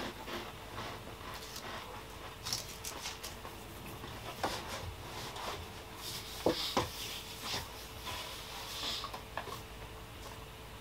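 Faint crinkling and scattered small clicks of a wafer biscuit's plastic wrapper being handled, with a couple of sharper clicks just past the middle.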